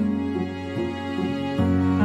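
Background music: held chords over a bass line whose notes change about every half-second to second.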